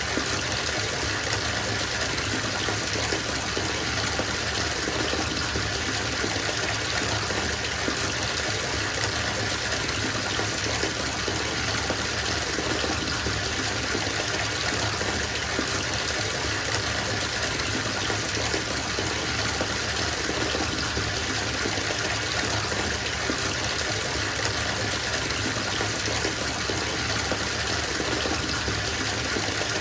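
Bathtub filling from a running tap: a steady gush of water pouring into the tub.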